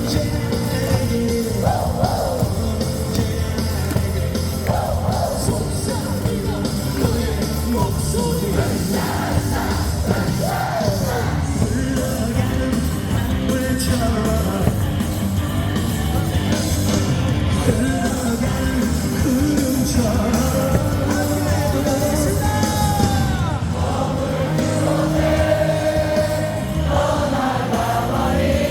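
Loud cheering music with singing played over a ballpark's loudspeakers, with a steady beat throughout.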